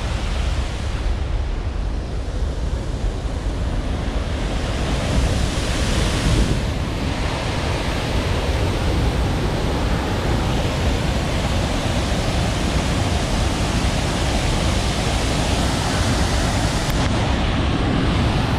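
Steady, loud rushing of water, an even hiss heavy in the low end, swelling briefly about six seconds in.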